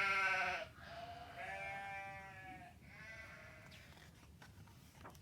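A sheep bleating three times: a loud short call, a longer wavering one, then a shorter fainter one.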